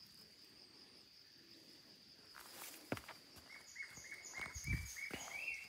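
Faint outdoor nature sound: a steady high insect trill, with footsteps on a dirt path. From about halfway, a bird gives a run of short repeated notes, about four a second, stepping higher near the end.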